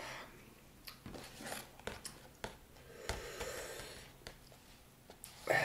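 Faint breathing and small mouth noises, with a few scattered light clicks, from a man sitting quietly through the burn of a Carolina Reaper chip.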